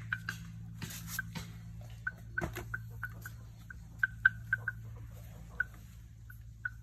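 A bird chirping in short, high single notes at irregular intervals, over light rustling and a low steady hum.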